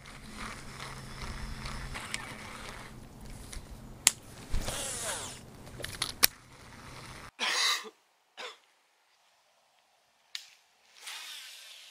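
Baitcasting rod and reel handled and cranked, with a low steady hum, a few sharp clicks and a brief swish about halfway through. The sound then cuts off abruptly, and a few short swishes follow near the end as the rod is swung.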